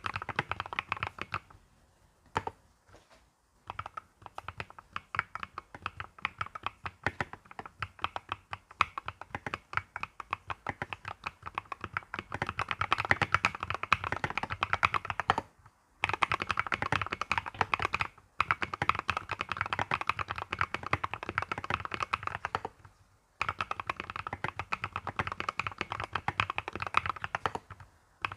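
Typing on an Mstone mechanical keyboard: quick runs of key presses, broken by short pauses several times.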